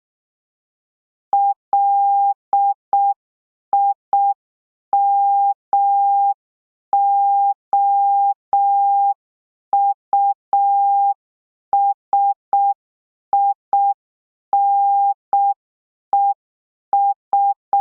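Morse code practice tone, a single steady pitch near 800 Hz keyed in short dits and long dahs with wide gaps between letters, spelling out the word LIMOUSINES (.-.. .. -- --- ..- ... .. -. . ...).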